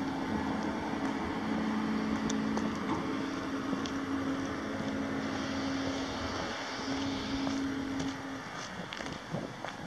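Caterpillar 3126 inline-six diesel engine of a Sterling LT7501 dump truck running steadily at idle.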